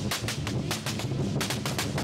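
Lion dance percussion: a big drum beating under fast, sharp cymbal clashes, about seven a second, with a short break around the middle.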